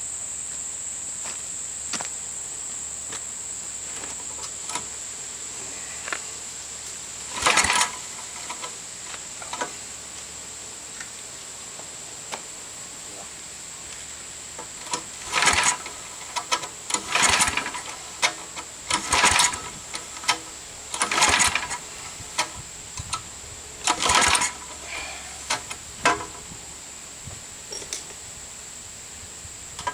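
Tecumseh V60 engine on an old Snapper riding mower being cranked over in six short bursts of about a second each without starting; its carburetor is clogged with varnished old gas. Crickets chirp steadily throughout.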